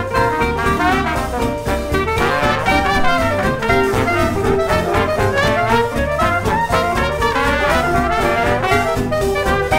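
Background music: an upbeat brass-led jazz track with trumpets and trombones over a steady beat.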